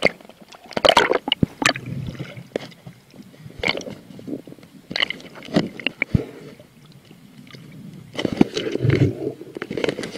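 Water sloshing and splashing around an action camera as it dips in and out of the water at the surface, in irregular bursts with gurgling, and a longer churning stretch near the end.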